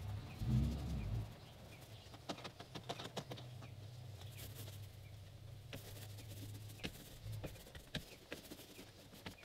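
Faint, irregular taps and scrapes of a paintbrush working two-part epoxy primer into the corners of a fiberglass boat's transom, over a low steady hum that fades about seven seconds in.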